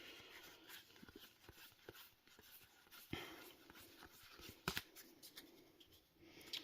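Faint handling of trading cards: soft rustling with a few separate light clicks as cards are flipped through by hand.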